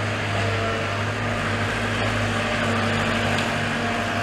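An engine running steadily, a constant low drone with a few steady tones over it.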